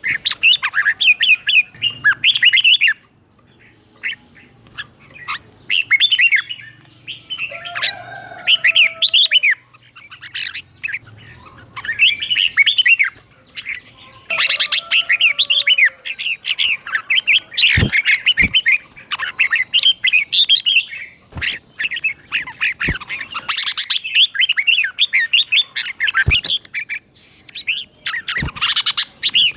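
Red-whiskered bulbul singing: bursts of quick, bubbling notes a few seconds long with short pauses between them, in the doubled phrasing that bulbul keepers call เบิ้ล. A few sharp clicks fall in the second half.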